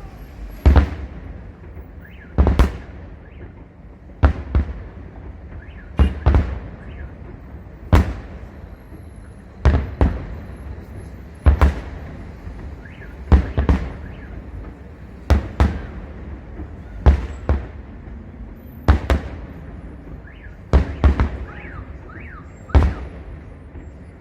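Fireworks display: aerial shells bursting in about a dozen loud bangs, roughly one every two seconds, some followed closely by a second crack.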